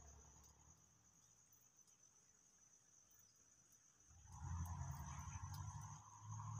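Faint steady high-pitched insect chirring. About four seconds in, a louder low rumble comes in.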